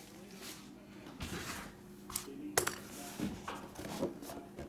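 Scattered light knocks, clicks and rustles of things being handled on a tabletop, the sharpest knock about two and a half seconds in.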